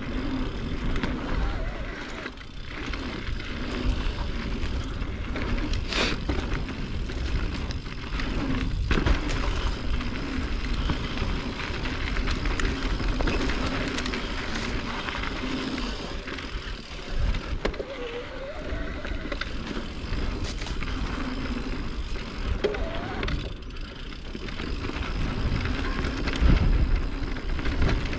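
Mountain bike riding down a dirt singletrack trail: tyres rolling over dirt with rattles and knocks from the bike, and wind rumbling on the microphone.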